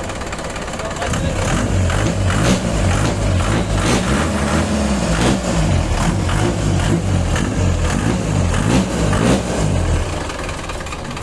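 Converted diesel jeepney engine being revved: repeated throttle blips raise and vary its pitch for several seconds, then it drops back to a steady idle near the end.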